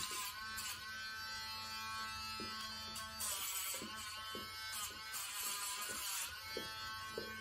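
Dremel-style rotary nail grinder running with a steady whine. Several times it dips in pitch with a gritty hiss as it grinds against the dog's claw, longest about three and five seconds in.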